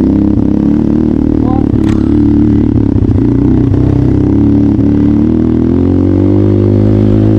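Trail motorcycle engine running steadily, its pitch rising a little about five to six seconds in as the revs pick up.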